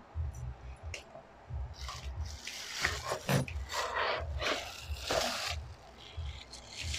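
Clear plastic bag crinkling and rustling as a vaporiser's parts are pulled out of a cardboard box, in bursts starting about two seconds in and dying down near the end.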